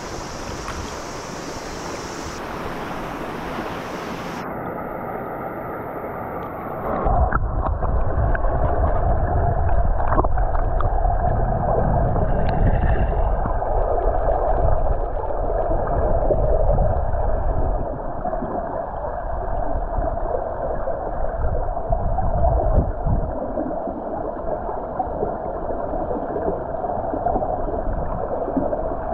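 Clear river water rushing over rocks, heard from above the surface. About seven seconds in the sound goes under water and turns into a louder, muffled rushing of the current with a deep rumble and the highs gone.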